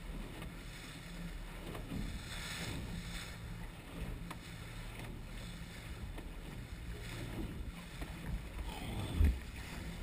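Boat motor running steadily as a small aluminium boat moves through choppy water, with waves splashing against the hull. A single thump comes near the end.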